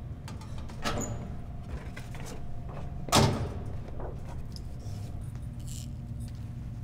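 A few short metallic clicks and knocks of things being handled, with one louder knock about three seconds in, over a steady low hum.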